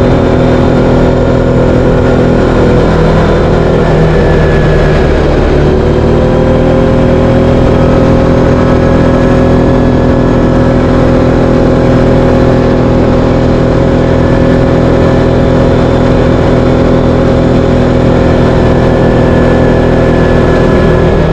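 Linhai 500 ATV engine running while riding. Its pitch sags about four seconds in, then rises again and holds steady.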